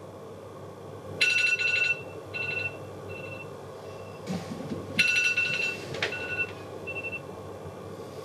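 Electronic alarm ringing. A bright chime sounds about a second in and again about five seconds in, each followed by a few shorter, fainter beeps. A brief rustle comes between the two.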